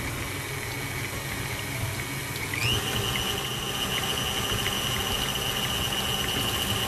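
Electric stand mixer running, its wire whisk beating butter in a steel bowl. About two and a half seconds in, a high whine rises in pitch and then holds steady over the motor's hum.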